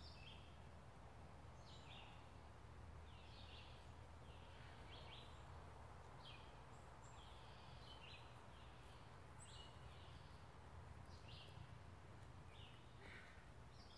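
Faint background with a bird's short, high chirps repeating about once a second, over a low steady hum.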